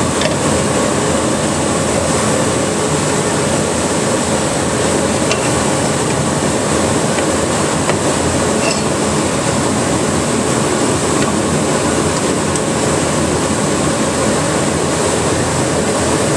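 Woodshop dust collector running steadily, a constant even rush of air and motor noise.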